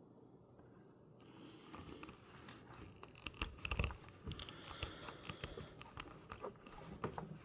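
Faint handling noise of Ethernet cable wire ends and a plastic RJ45 plug: irregular small clicks, rustles and scrapes as the twisted-pair wires are fed into the connector. It starts about a second in, with a dull knock near the middle.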